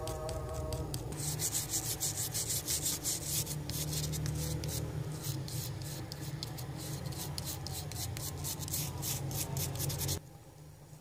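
Rapid, repeated scraping rub of a soldering iron tip dragged fast back and forth over the solder pads of a hard drive's circuit board to clean them, with a low hum underneath. It cuts off suddenly about ten seconds in.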